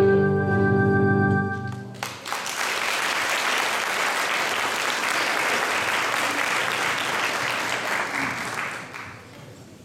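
The last held chord of a carol played on keyboard and guitars stops about two seconds in, and the audience breaks into applause that fades out near the end.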